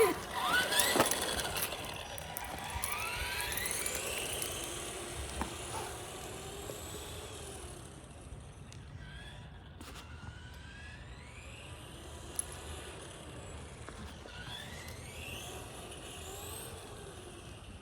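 Electric RC car's motor whining, its pitch rising and falling again and again as the car speeds up and slows; loudest in the first few seconds.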